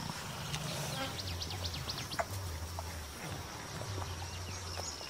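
Forest ambience: a steady high insect buzz, with a bird giving a quick run of short, high, falling chirps about a second and a half in, over an on-and-off low hum.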